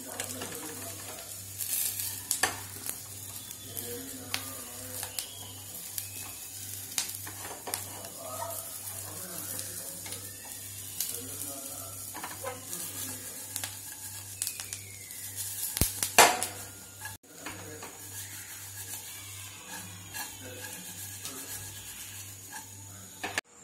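Wooden spatula stirring and scraping fried chicken pieces in a steel frying pan while the oil sizzles, with frequent clicks and clacks against the pan. The loudest clatter comes about 16 seconds in, and the sound breaks off briefly just after.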